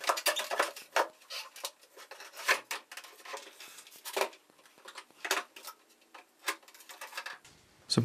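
Plastic clicks, knocks and rattles from handling a vacuum cleaner: it is lifted off its cart and opened to take out the paper filter bag. The clicks come irregularly, in quick clusters with short pauses between.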